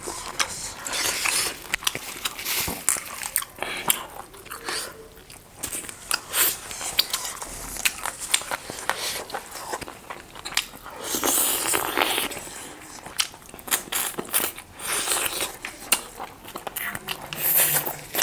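Close-miked eating: biting and chewing of fried chicken and mutton lollipops, with irregular crunchy, crackling bites.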